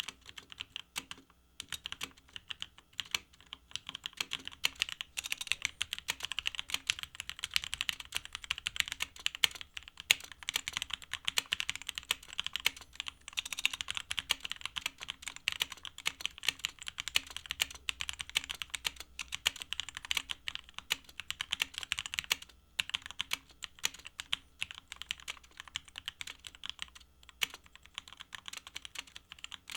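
Munfrost Deimos TKL mechanical keyboard with linear Gateron switches being typed on quickly and continuously: a dense run of key clacks with a few short pauses.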